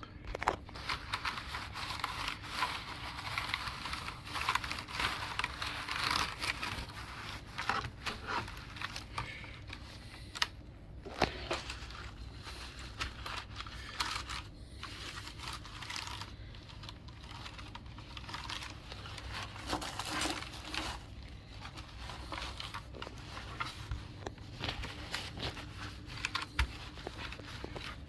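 Irregular crinkling, scratching and small plastic clicks of hands working over a mechanical keyboard while it is being cleaned, with brief pauses about ten and fourteen seconds in.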